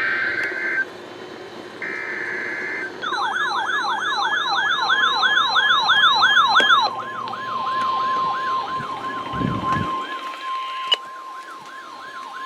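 EAS alert audio: two short raspy bursts of SAME digital header data tones, a second apart. About three seconds in comes a fast warbling siren-like alert tone, about four sweeps a second, joined soon after by a steady single attention tone that holds on after the warble fades. The alert signal comes just before a National Weather Service severe thunderstorm warning is read.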